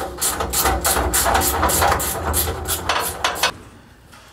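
Background music with a steady beat and a deep bass line, cutting off abruptly about three and a half seconds in.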